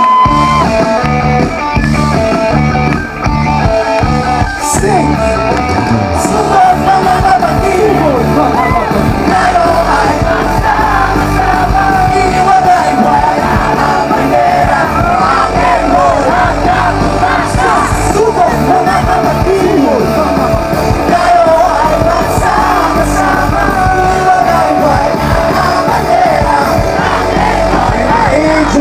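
Live rock band playing loudly, with sung and shouted vocals over the band.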